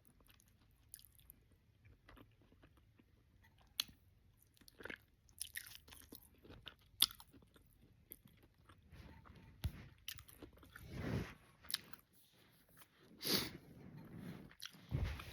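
Close-up sounds of a person eating oxtails, cabbage and rice: wet chewing and lip smacks with scattered sharp clicks, sparse at first and growing denser and louder in the second half.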